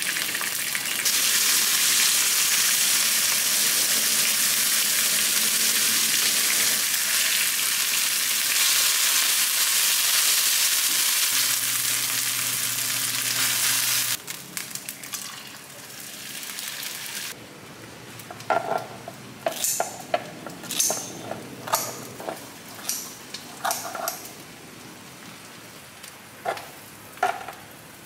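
Marinated pork neck (moksal) sizzling loudly in hot oil in a frying pan. About halfway through the sizzle drops away and is followed by scattered sharp clinks and taps of a utensil.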